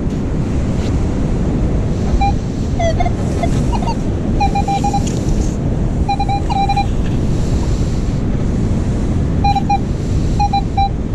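Wind buffeting the microphone and surf rushing, with short clusters of electronic metal-detector beeps at one mid pitch sounding several times: the detector signalling a buried metal target in the sand.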